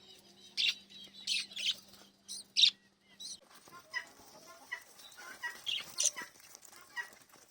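Small pet parrots chirping: a run of loud, sharp, high chirps in the first three seconds, then softer, lower chattering twitters with one more loud chirp about six seconds in. A faint steady hum runs underneath until a little over three seconds in.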